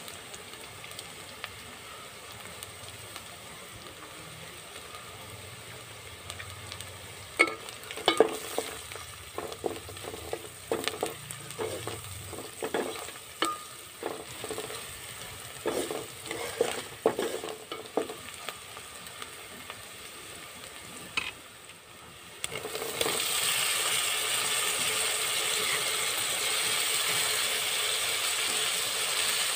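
Sliced onions, garlic and dried red chillies frying in oil in an aluminium pot, sizzling lightly. From about seven seconds in, a wooden spatula stirs the pan and knocks against the pot for about ten seconds. About three quarters of the way through, a much louder steady sizzle starts suddenly, with chopped tomatoes now in the hot oil.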